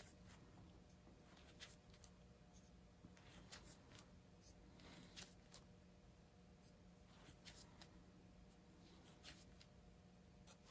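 Near silence: faint room tone with a low steady hum and scattered soft scratchy ticks from a gloved hand working a thin tool in wet paint on a tile.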